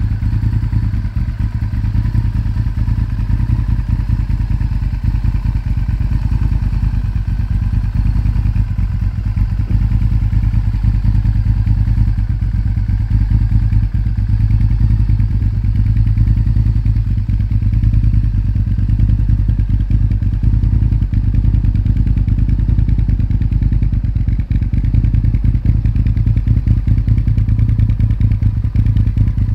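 Honda VTR's V-twin engine idling steadily through aftermarket Martin exhaust silencers.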